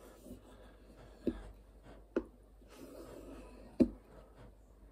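Fallkniven F1 knife blade drawn with firm pressure along a leather strop loaded with polishing paste, giving faint scraping swishes. There are three sharp knocks, about a second, two seconds and nearly four seconds in, the last the loudest.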